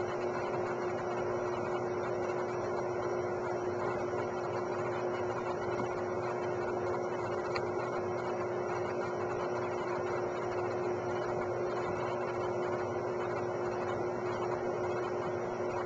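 Steady machine hum: one constant tone over an even hiss, unchanging throughout.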